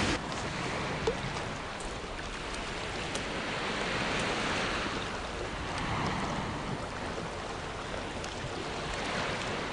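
Sea waves washing against a rocky shore: a steady hiss of surf that swells and eases every couple of seconds.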